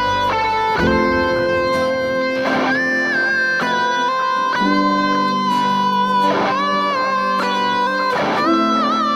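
Background music led by an electric guitar playing sustained, bending melody notes over chords, the bass dropping out about a second in.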